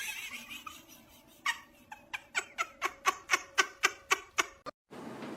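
A cat crunching dry cat treats: a quick, even series of short crunches, about five a second, starting about a second and a half in and stopping shortly before the end.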